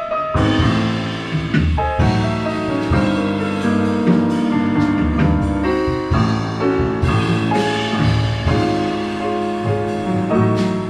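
Jazz piano trio played back on automated instruments: a self-playing grand piano carries the chords and melody over double bass and a drum kit with cymbal strikes.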